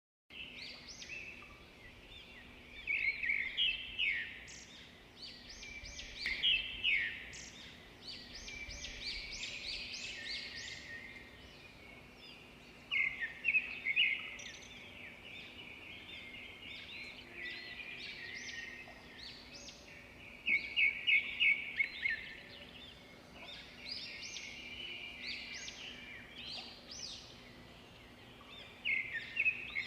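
Small songbirds chirping and twittering together, with louder bursts of quickly repeated trilled notes every several seconds.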